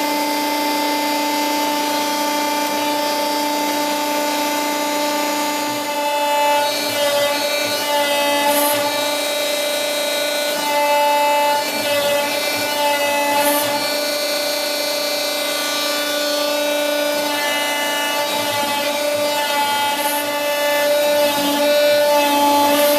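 Hydraulic pump of an Alpha 60-ton powder compacting press running with a steady whine. Its tone shifts several times from about six seconds in as the press is cycled.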